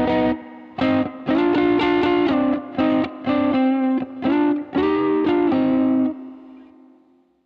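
Electric guitar recorded clean through a direct box and reamped through an amplifier and effects, playing a rhythm part of separate chord strikes. The last chord rings out and fades away near the end.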